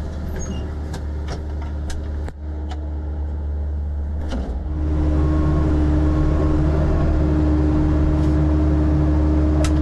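Excavator's diesel engine running steadily, with a few sharp metal clanks, then throttled up about five seconds in and running louder and steady.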